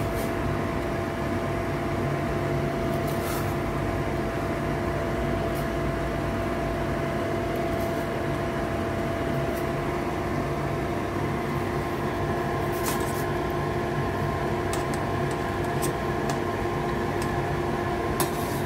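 A steady machine-like hum with a constant low tone, as from a kitchen fan or running appliance. A few light clicks and knocks come about three seconds in, around the middle and near the end.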